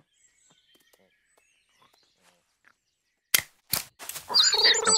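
Near silence with a few faint bird chirps, then two sharp cracks about half a second apart. Near the end, cartoon animal squeaks, grunts and bird chirps rise quickly into excited cheering.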